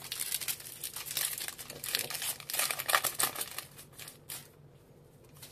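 Foil Pokémon booster pack wrapper crinkling and being torn open: a dense crackling that dies away about four and a half seconds in.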